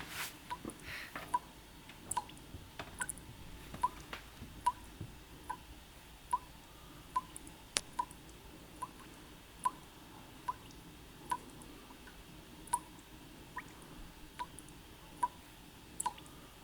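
Water dripping steadily, a faint plink about every 0.8 seconds.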